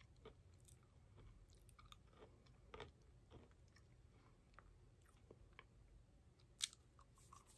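Faint chewing of a mini strawberry Pop Tart bite: soft scattered mouth clicks, with one sharper click late on.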